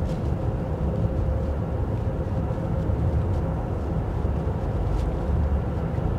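Car driving on town streets: steady low engine and road rumble with a faint steady hum.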